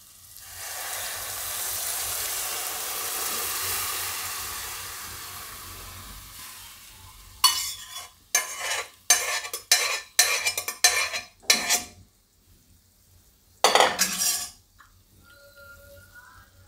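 Boiled pigeon peas and their cooking water poured into hot oil and masala in a kadai, sizzling loudly and slowly dying down over about six seconds. Then a spatula stirring them in, scraping against the pan in a run of quick strokes, with one more stroke a little later.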